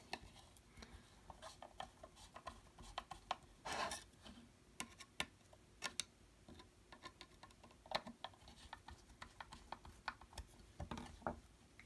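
Faint, irregular clicks and ticks of a small screwdriver driving a body screw into a folding knife's handle, the knife and screwdriver shifting against the table, with a short scrape about four seconds in.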